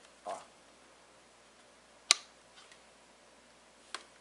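Plastic humidifier housing being handled: a short soft scrape just after the start, a sharp click about two seconds in, and a fainter click near the end.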